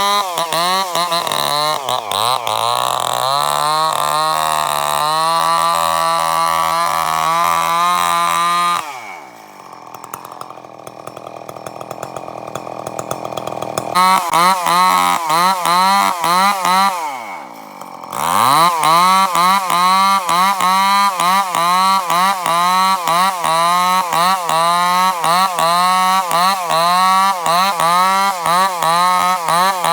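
Chainsaw cutting bayur wood, its engine note wavering rhythmically under load. About nine seconds in it drops back to idle, then revs up again around fourteen seconds. It dips once more briefly near eighteen seconds before cutting on.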